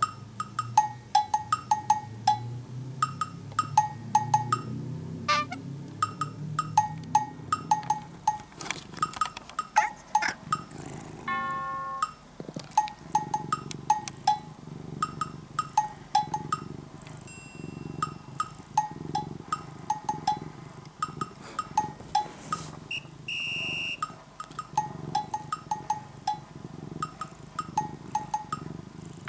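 A domestic cat purring, a low sound swelling and fading in a slow rhythm, under light playful background music with regular wood-block-like clicks and occasional chimes.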